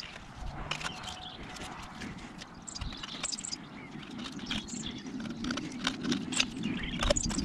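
Scattered light clicks and scrapes of hand work cleaning oily deposits off engine parts, with birds chirping in the background.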